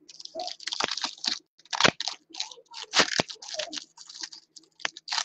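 2019 Diamond Kings baseball card pack wrappers being torn open and crinkled by hand, a string of irregular crackling rustles with a few sharp clicks.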